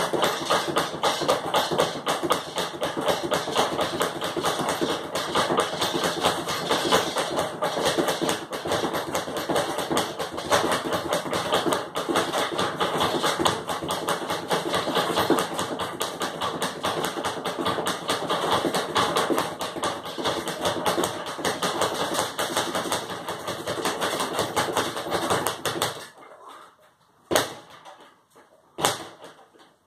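Speed bag being punched in a fast, continuous rhythm, the bag rattling off its rebound board. Near the end the drumming breaks off, leaving a few separate single hits.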